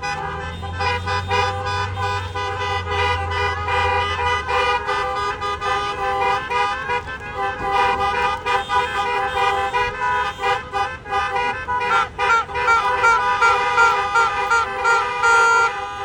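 Bus's multi-tone musical horn playing a tune of overlapping held notes, with a diesel engine rumbling under it for the first few seconds. In the last few seconds one short horn note repeats two or three times a second.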